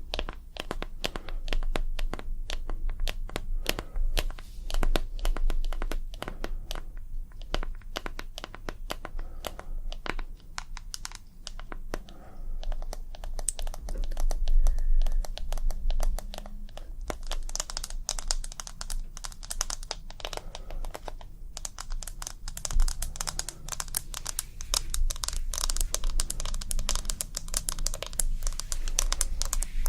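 ASMR tapping: fast, irregular fingertip and nail taps and clicks on objects close to the microphone, running on without pause and turning denser and crisper a little past halfway.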